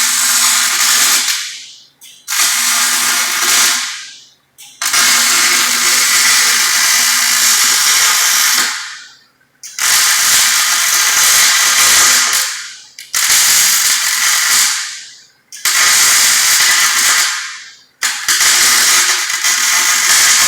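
Wire-feed welder arc crackling and sizzling in a series of short weld runs, about seven bursts of one to four seconds each with brief pauses between them.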